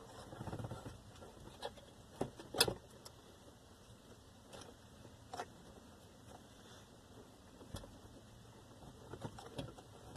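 Scattered light clicks and knocks of a plastic fuse box being handled and fitted back into its mount in a car, the sharpest knock about two and a half seconds in.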